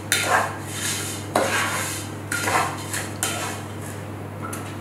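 Kitchen utensils knocking and scraping against bowls and a pot: about five short clatters, roughly one a second, each fading quickly.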